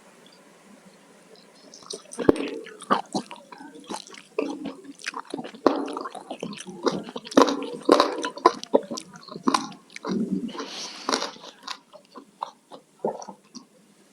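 Close-miked eating sounds: wet chewing and mouth smacking, with many short clicky smacks. They start about two seconds in and thin out near the end.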